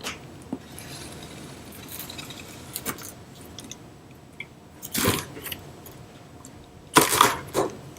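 A cardboard shipping box being opened by hand: rustling and crinkling of the packaging with small clicks and knocks, and two louder rustling bursts about five and seven seconds in.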